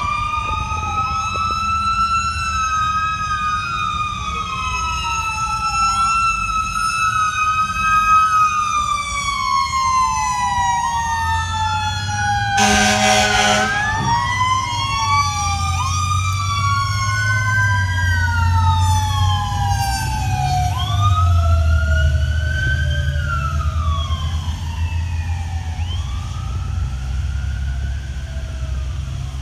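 Several emergency-vehicle sirens wailing at once, their pitches rising and falling out of step with each other. One short air horn blast comes about halfway through, and a low engine rumble from heavy vehicles builds in the second half.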